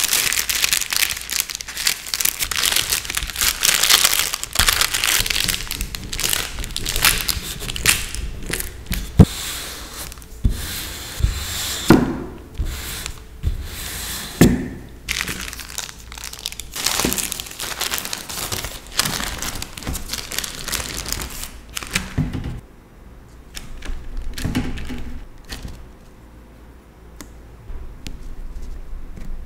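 Baking parchment crinkling and rustling as it is folded around a sheet of cookie dough, then a rolling pin rubbing over the paper-wrapped dough with a few soft thumps. The sound is lighter in the last several seconds, where a cookie cutter is pressed into the dough.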